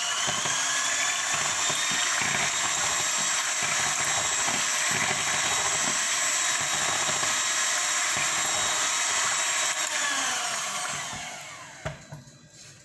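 Handheld electric mixer running at a steady speed, its beaters whirring through eggs, butter and milk. Near the end its whine falls in pitch as the motor winds down and stops.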